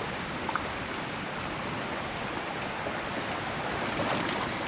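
Steady wash of choppy lake water lapping against a boat's hull.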